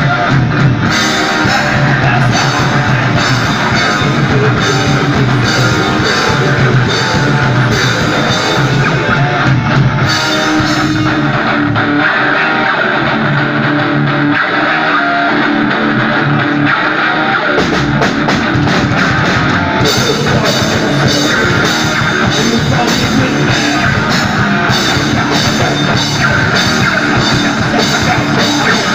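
A live metal band playing loud: distorted electric guitars, bass and a drum kit. About a third of the way in the cymbals and drums drop out, leaving the guitars riffing; the drums come back a little after halfway with a run of hits before the full band resumes.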